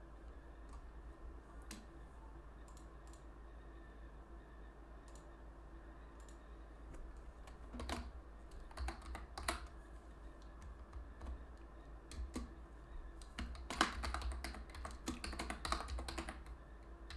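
Typing on a computer keyboard: a few scattered key presses at first, then a quicker, busier run of keystrokes through the second half, over a low steady hum.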